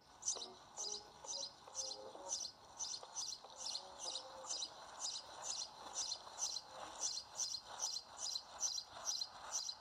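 A sparrow chirping: short, high chirps repeated steadily, about two to three a second.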